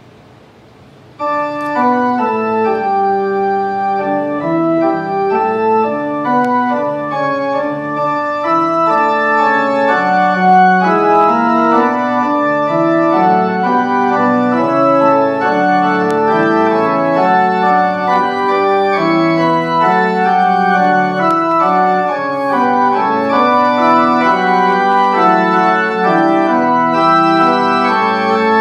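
Organ playing music in sustained chords that change from one to the next, starting suddenly about a second in.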